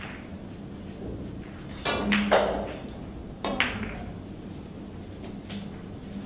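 A pool cue strikes the cue ball, followed by sharp clicks of billiard balls colliding about two seconds in, then another pair of ball clicks about a second and a half later.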